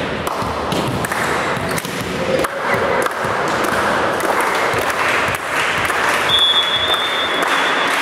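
Clapping and crowd noise in a large sports hall. About six seconds in, the referee's whistle sounds once, a steady high note for about a second, signalling the serve.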